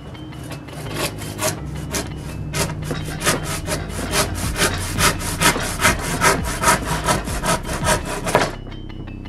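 Handsaw cutting through a laminate countertop in quick back-and-forth strokes, about four a second, stopping near the end as the offcut is sawn free.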